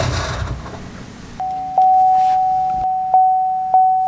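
A rush of noise fades out over the first second, then a truck's dashboard warning chime starts: one steady electronic tone, re-struck every half second or so.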